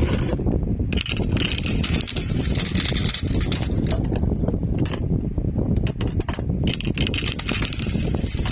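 Marbles rolling down a marble run track, a constant rumble with many quick, irregular clicks as marbles knock against the track and each other.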